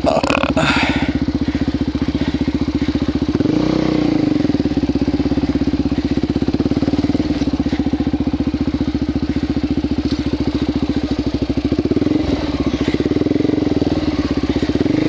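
Suzuki DR-Z400SM's single-cylinder four-stroke engine, fitted with a silencer insert, running at low revs with a steady pulsing beat and a short blip of throttle about four seconds in.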